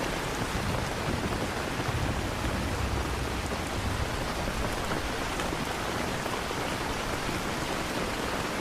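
Steady rain, with a low rumble of thunder from about two to four seconds in.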